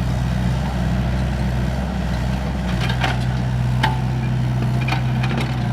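A vehicle engine running steadily at idle, with a few faint clicks and knocks over it.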